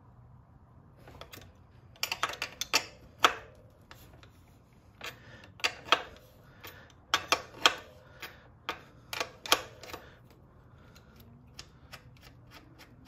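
An 18 mm wrench clicking and clinking on the rear hub motor's axle nut as the nut is loosened. The sharp clicks come in short irregular bursts from about two seconds in until near the end.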